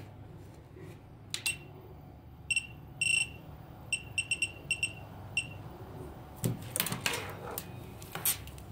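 Bench DC power supply beeping as its voltage setting is adjusted: about eight short, high beeps in three seconds, one held a little longer. Near the end come irregular clicks and rattles of wire leads being handled.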